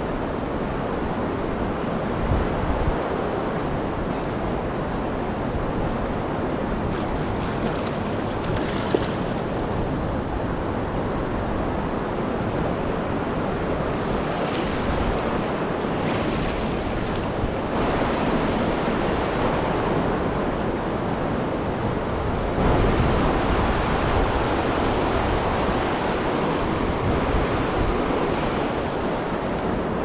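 Fast river water rushing and churning past a concrete wall below the dam's compensating gates, the river running unusually high and fast. A steady rush that gets a little louder about two-thirds of the way through.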